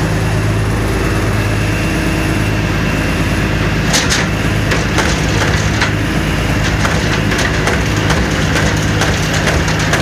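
John Deere 324G skid steer's diesel engine running steadily. From about four seconds in, a run of sharp clicks and knocks is heard over it.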